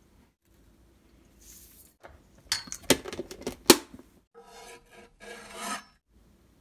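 A few sharp clacks of a wooden spoon against a stainless-steel mixing bowl, then a kitchen knife scraping along a wooden cutting board for about a second and a half, pushing minced garlic into the bowl.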